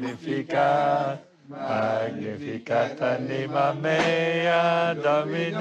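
A small group of voices singing a slow chant together, held notes in several phrases with brief pauses between them.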